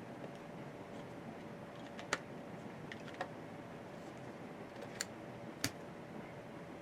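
Four short, light clicks, spaced irregularly, over a steady low hiss and faint hum: small items being handled during the camera unboxing.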